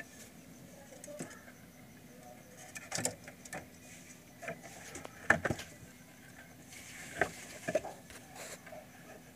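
Scattered soft knocks and rustling from handling in a fur-lined rabbit nest box, the loudest a sharp knock about five seconds in.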